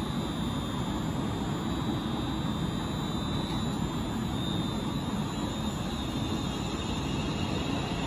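London Northwestern Railway electric multiple unit moving slowly alongside the platform: a steady rumbling hum from its motors and wheels on the rails, with a faint high whine.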